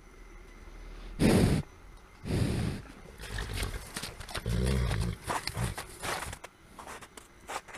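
Large farm animals close to the microphone: two loud, short blasts of breath, the first about a second in, then a low, pulsing call near the middle, followed by light scattered knocks like hooves.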